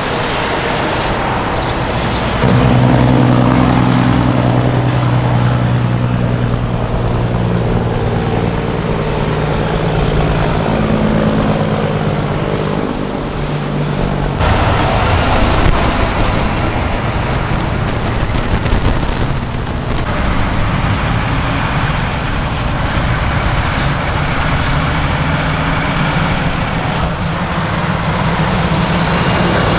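Diesel semi-truck engines pulling away and passing one after another, a deep steady drone that grows louder about two and a half seconds in. Midway a loud hiss starts suddenly, lasts about five seconds and cuts off, before another truck's engine drone carries on.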